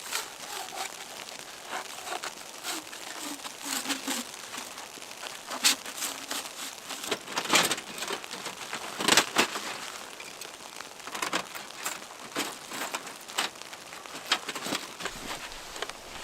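Irregular crinkling and crunching handling sounds, broken by several sharper cracks; the loudest come about halfway through.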